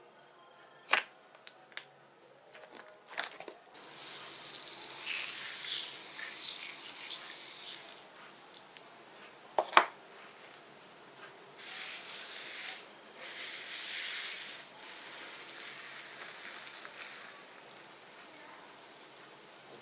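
Fluffy slime being worked by hand: stretches of soft, crackly hissing squelches, with a few sharp clicks, the loudest about ten seconds in.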